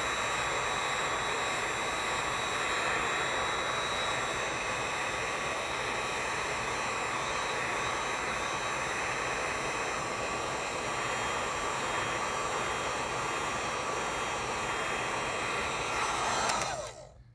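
Electric heat gun on its high setting, a steady blowing rush with a faint whine, heating vinyl wrap on a metal grill bar so the stretched film relaxes and sets in place. It cuts off near the end.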